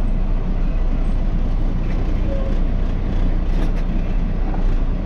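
Grain truck's engine running steadily with a low rumble as the truck is driven slowly through a tight turn.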